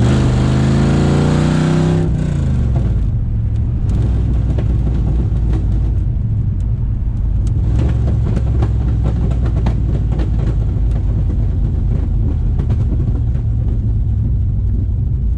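Holden 5.0-litre V8 of an HSV VS Clubsport running with no mufflers or cats, just straight extractors. It revs up for the first two seconds, drops as the revs fall away, then settles into a steady low rumble.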